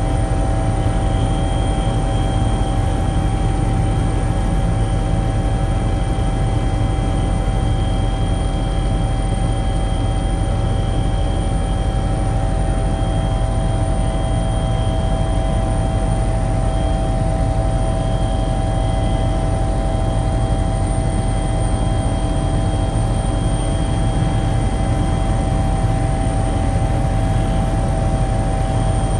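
Steady engine drone of an aircraft in flight, heard from on board, with several steady whining tones over a constant rumble.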